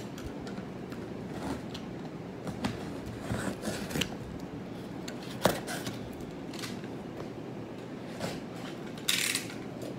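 Box cutter slicing the packing tape on a cardboard box: scattered scrapes and small clicks, a sharp click about five and a half seconds in, and a louder rasp near the end.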